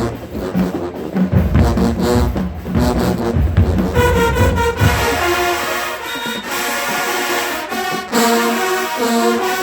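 Marching band playing: a beat of low drum hits for about four seconds, then the horns come in with loud sustained brass chords, pulsing again near the end.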